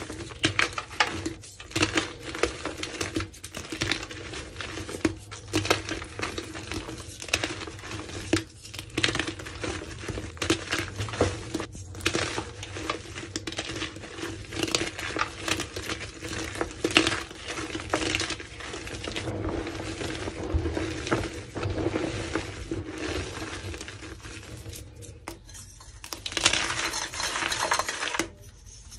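Reformed gym chalk crumbled and crushed by hand: a dense, uneven crackle of small crunches and clicks as the pieces break apart and powder falls. After a short pause near the end, fingers press into fresh chalk blocks with a brighter crunching.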